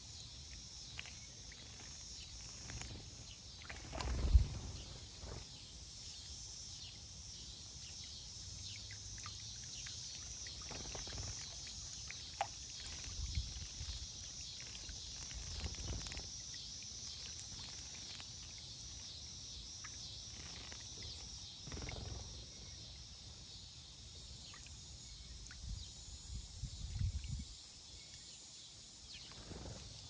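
Outdoor ambience: a steady high insect drone, with a few scattered dull thumps and clicks, the loudest about four seconds in and another group near the end.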